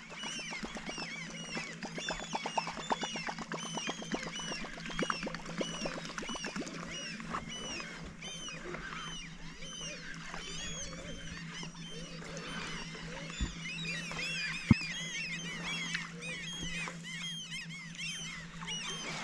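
Many birds chirping in quick, overlapping calls over a steady low hum, with rapid clicking through the first several seconds and two sharp knocks about two-thirds of the way in.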